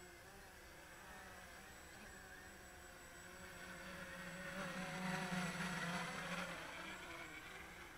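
Walkera QR X350 quadcopter's motors and propellers buzzing faintly in flight, growing louder about halfway through and fading again near the end as it flies past.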